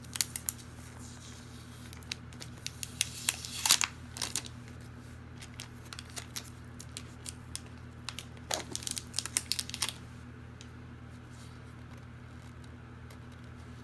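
Packing material being handled: crinkling, crackling and tearing in three bursts of sharp clicks, the loudest just under four seconds in, over a steady low room hum.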